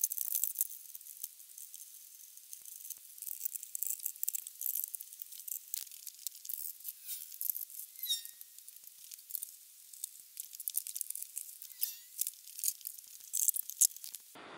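Hand work on an ATV's drive-clutch cover: irregular small clicks, scrapes and rattles of screws, a hand tool and the cover being loosened and lifted off, with a few short high squeaks.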